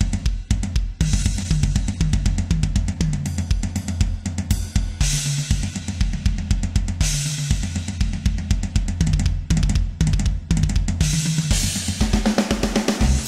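Drum-led intro of a rock/metal song: fast, driving kick-drum and snare hits with hi-hat and cymbal crashes, over a low line that steps between notes.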